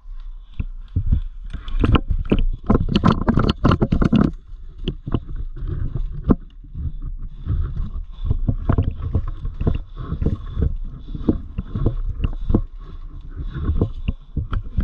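Airsoft guns firing in rapid clicks and snaps over the low rumble and knocks of a player moving with the camera. The clicks are thickest about two to four seconds in, when suppressive fire is being laid down.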